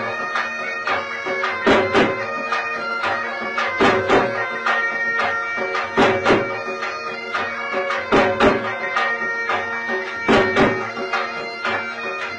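Bagpipes playing a folk tune over a steady drone, with drum strokes falling in pairs about every two seconds.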